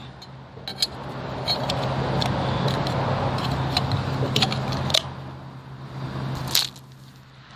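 Rustling handling noise with a scattered series of light metallic clicks and clinks, over a steady low hum.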